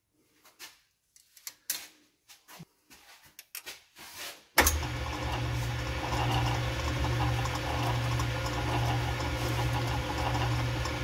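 A few small clicks and knocks of hands working at a metal lathe, then, about halfway through, the lathe is switched on with a sharp click and its motor and gearing run steadily with a low hum.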